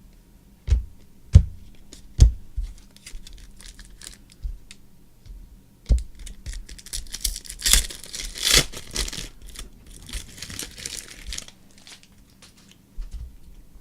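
A few sharp taps, then a trading card pack's wrapper torn open and crinkled for several seconds, starting about seven seconds in.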